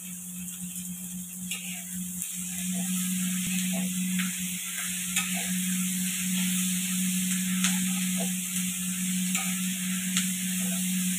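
Sliced onions frying in a shallow metal pan over a gas flame, with a steady hiss. From about a second and a half in, a metal spatula scrapes and clicks against the pan now and then as the onions are stirred while they brown.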